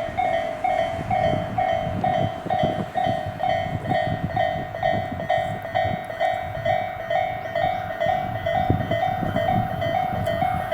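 Japanese railway level crossing's electronic warning bell ringing in a steady repeating pattern, about two strokes a second. Underneath, a train runs on the line with low rumbling and wheel clatter.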